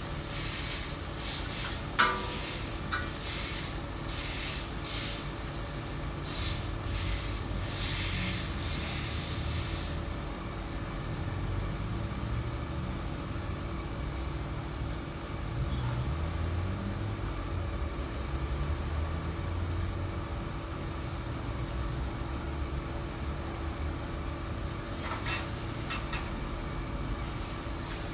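Meat sizzling on a steel flat-top griddle, with a metal scraper scraping and clanking on the plate in the first ten seconds and again near the end. A sharp clank about two seconds in is the loudest sound.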